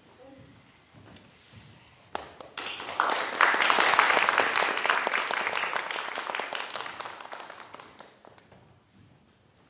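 Audience applause: scattered claps begin about two seconds in, swell quickly into full applause, then thin out and die away near the end.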